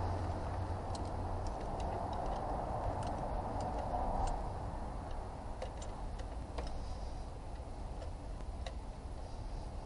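Scattered light clicks and taps of hands handling parts around the injectors and fuel lines on top of a 2.2 diesel engine, over a steady low background hum that eases after the first few seconds.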